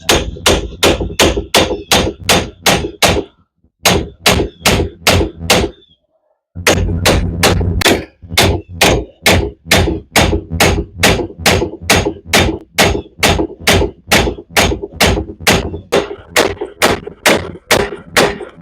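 Hammer blows on steel, struck rapidly and steadily at about three a second, each hit ringing briefly, with two short pauses a few seconds in. They are the blows of work to free the front wheel bearing hub assembly.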